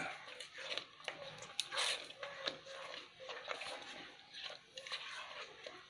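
Thick, sticky cooked purple yam paste (kinampay ube halaya) being stirred in a stainless steel pot: irregular wet scraping and smacking strokes from the spoon and paste, with the occasional click of the spoon on the pot. The paste has cooked down almost to its finished, jam-like state.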